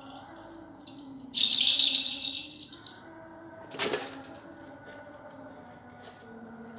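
A rattling shake lasting about a second, starting about a second and a half in, followed by a single sharp click a little before four seconds.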